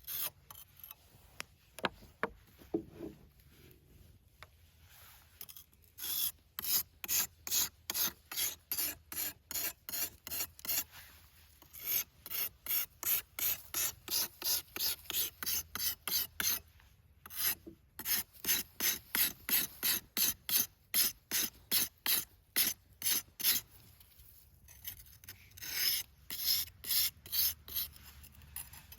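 A nata (Japanese hatchet) blade being sharpened, with steady back-and-forth scraping strokes at about two to three a second. The strokes come in several runs separated by short pauses, and the first few seconds hold only a few faint clicks.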